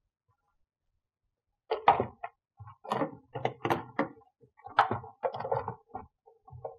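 Plastic frunk trim panels on a Tesla Model S being handled and pushed down into place: a run of knocks, clunks and clicks that starts about two seconds in.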